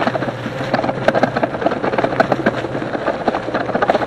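Rear rack of an e-bike rattling as the bike is ridden over bumpy ground: a fast, irregular clatter of clicks. The rack carries the 48 V lithium battery pack and is right at its maximum load, too flimsy for it.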